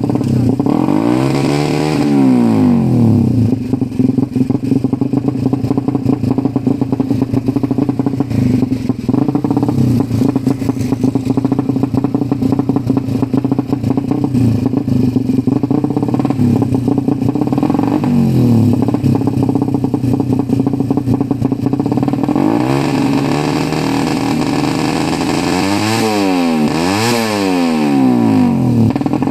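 Ported Suzuki Satria FU single-cylinder four-stroke engine running at a fast, rough idle with a clattery exhaust note. It is blipped and falls back a second in, again about two-thirds through, and twice in quick succession near the end.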